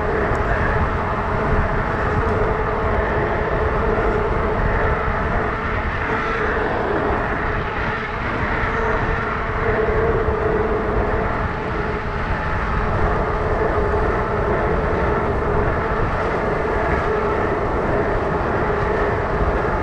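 Fat-tire electric bike with a steel-geared BBSHD mid-drive motor riding steadily on pavement: a continuous hum of the fat tires and motor drive, with wind rumbling on the microphone.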